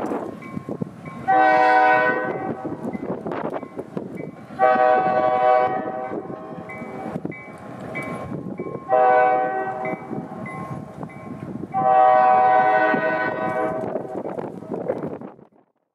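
Freight locomotive's air horn sounding four blasts at a distance, long, long, short, long: the grade-crossing signal. Under the blasts runs the rumble of the moving train. It fades near the end and is cut off.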